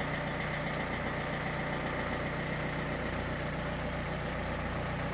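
Renault K9K 1.5 dCi diesel engine idling cold with a rapid, regular knock, which the owner takes for one of the Delphi injectors knocking until the engine ECU corrects it.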